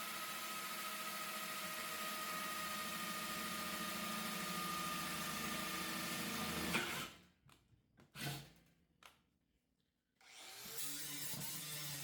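Handheld power tool running steadily, then cutting off abruptly about seven seconds in. A few short knocks follow in near silence, and a different, lower steady hum starts about ten seconds in.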